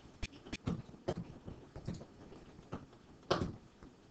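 Several faint, scattered computer mouse clicks and small taps, the loudest a little over three seconds in.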